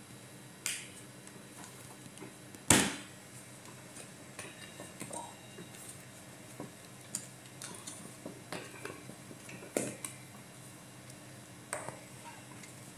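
Sharp plastic clicks and taps from a clear plastic food container packed with dates as its lid is pressed down and snapped shut, a handful of separate clicks with the loudest about three seconds in.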